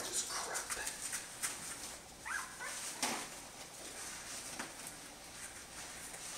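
A young Jämthund puppy's short whimper about two and a half seconds in, with faint clicks and light paper rustling around it.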